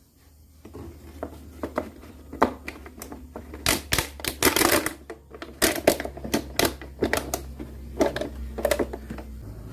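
Irregular sharp clicks and knocks, coming in quick clusters, over a steady low hum.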